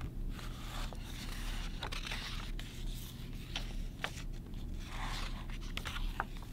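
A softcover picture book being opened and its pages turned and pressed flat by hand: paper rustling and crinkling, with a few sharp little clicks and taps.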